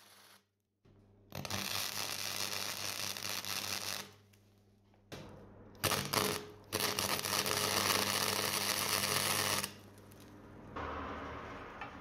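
Electric arc welding on steel: the arc crackles and sizzles in two long runs of about three seconds each, with a brief strike between them. A steady low hum runs underneath.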